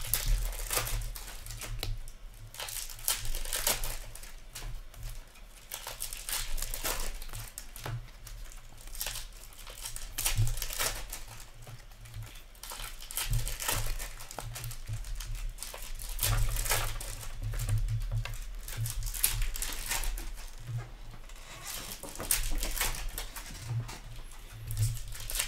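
Hockey trading cards being handled, flipped through and stacked, the card stock rustling and clicking in many short bursts. A low hum runs underneath.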